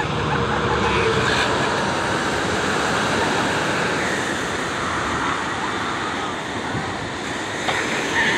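Ocean surf breaking and washing up on the beach, a steady rushing noise.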